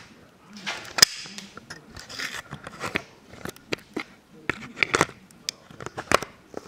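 Clicks, knocks and rustling from things being handled close to the microphone, with one sharp knock about a second in.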